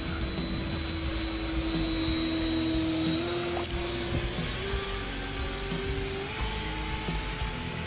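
Electric ducted fan of an E-flite 70mm F-16 radio-controlled jet whining in flight, its pitch rising in three steps. There is a single sharp click about halfway through.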